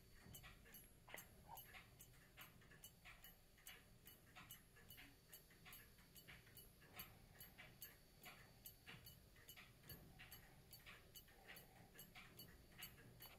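French clock movement's recoil escapement ticking faintly at an even, quick rate, with its pallet grooves polished out so that it runs without any eccentric beat adjustment.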